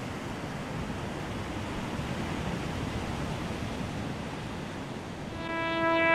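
A steady rushing noise that slowly grows louder, then music with held chords fades in about five seconds in.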